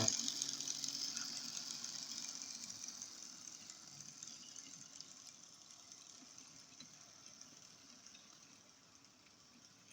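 Hornby model Class 56 locomotive's small electric motor whirring and its wheels running on the track as it pulls a train of wagons, fading steadily as it moves away.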